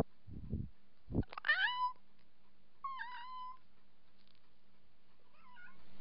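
Domestic cat meowing close to the microphone: a short rising meow about a second and a half in and a second, steadier meow about three seconds in, with a faint softer call near the end. A few low bumps come first, as the cat's head knocks against the camera.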